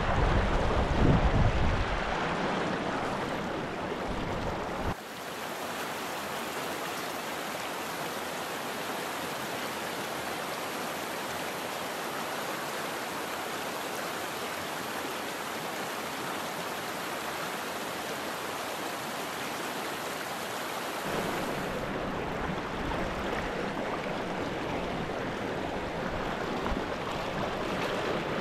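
Water of a small trout stream running over rocks: a steady rushing hiss. A low rumble sits under it in the first two seconds, and the sound of the water changes abruptly about five seconds in and again about twenty-two seconds in.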